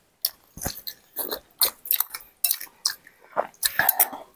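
A person eating spicy bakso (meatball noodle soup) from a glass bowl with a spoon: a quick, irregular run of short slurps, chews and huffing breaths against the chili heat, with the spoon knocking on the bowl.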